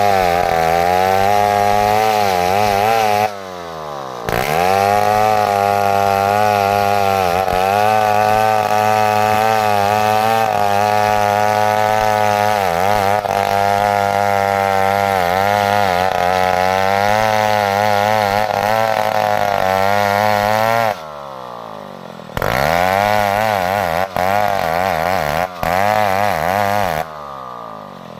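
Stihl chainsaw running at high revs while cutting wood, its pitch wavering under load. Three times the engine note drops sharply as the throttle is eased off, then climbs back to full speed: a few seconds in, about three-quarters of the way through, and near the end.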